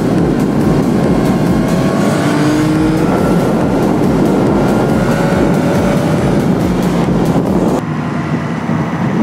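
Motorcycle engine running under way with wind rush on the microphone, its pitch rising in short climbs as it accelerates through the gears. About eight seconds in the sound turns duller and a little quieter.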